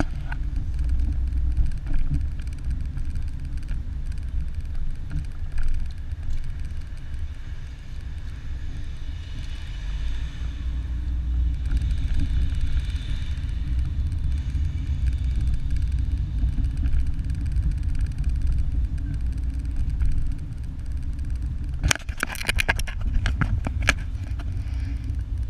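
Steady low rumble of a car's engine and tyres heard from inside the cabin while driving, with a quick cluster of sharp knocks a few seconds before the end.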